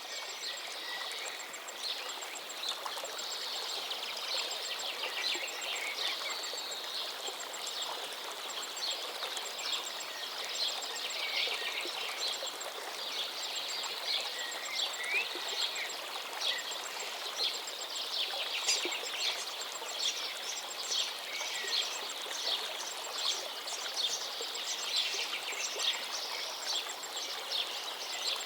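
River water running steadily, with many small birds chirping and trilling over it; the bird calls come thicker from about halfway through.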